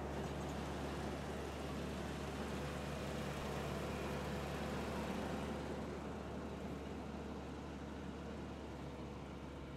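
Side-mount blueberry harvester running steadily as it works along a row: an even, low mechanical drone with a broad hiss.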